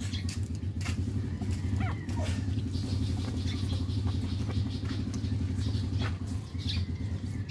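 Newborn Shih Tzu puppies giving a few short, thin rising squeaks while nursing, over a steady low hum.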